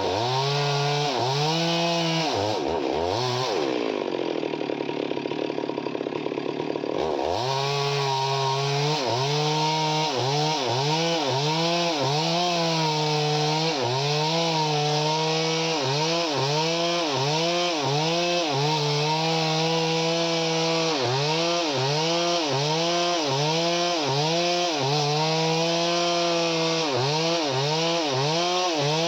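Chainsaw engine running hard while cutting wood, its pitch dipping and recovering about once a second as the chain bites. Between about two and seven seconds in the revs fall away and waver, then climb again.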